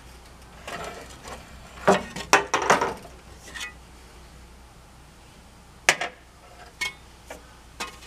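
Galvanized steel post stirrup clinking and knocking as it is handled. A cluster of clinks comes about two to three seconds in, a single sharp knock near six seconds, and a few lighter clicks after it.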